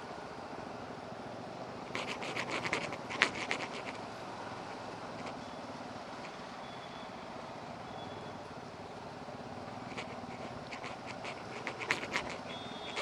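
Motorcycle engine running at low riding speed with steady road noise, heard from the rider's own bike. Clusters of sharp clicks and knocks come about two seconds in and again near the end.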